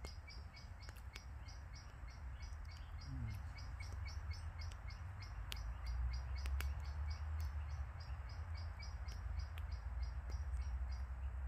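A small bird calling a high chirp over and over, about four times a second, over a steady low rumble, with a few sharp ticks.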